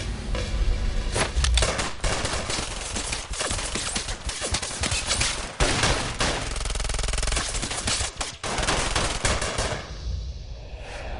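A long volley of rapid gunshots from handguns, many shots close together. It starts about a second in and stops abruptly about ten seconds in.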